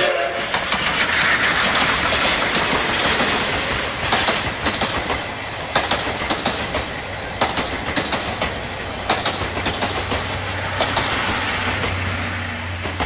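Train hauled by the C56-160 steam locomotive with a diesel helper passing close by: a loud, steady rumble, loudest in the first few seconds as the locomotives go by. The passenger coaches then roll past with a clickety-clack of wheels over rail joints, about once every second and a half.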